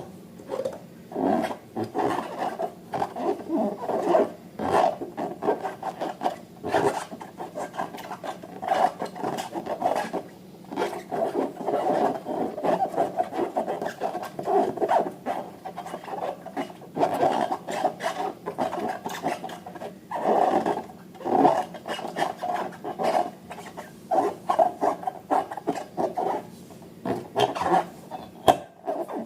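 Rubber balloons being rubbed and squeezed by hand, giving a continuous run of uneven rubbery squeaks and rasps.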